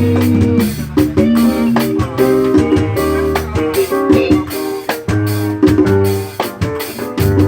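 A live band playing during a soundcheck, with a strong bass line under guitar and keyboard chords and steady percussion strokes.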